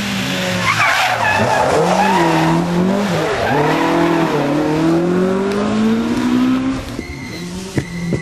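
Ford Escort Mk2 rally car at full effort on a stage: the tyres squeal as it slides through a corner with the engine note dipping and wavering, then it accelerates hard with a long rising engine pitch. Near the end the sound drops away.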